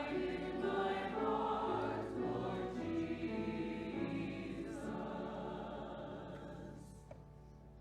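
Church choir singing slow, sustained chords, the last one dying away near the end.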